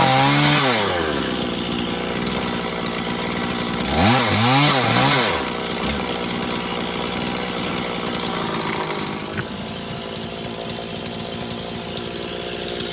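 Stihl MS460 two-stroke chainsaw revving in quick rises and falls, dropping back to idle about a second in. It revs briefly again about four seconds in, then idles steadily.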